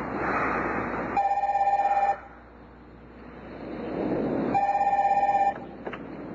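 Telephone ringing twice, each ring about a second long and a few seconds apart.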